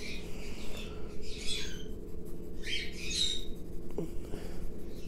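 Graphite B pencil scratching across printer paper in several strokes of under a second each, over a steady low hum, with a small click about four seconds in.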